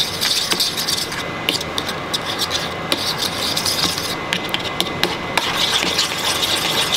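A utensil stirring a thick, creamy garlic crema in a bowl: continuous rubbing and scraping against the bowl with many small clicks.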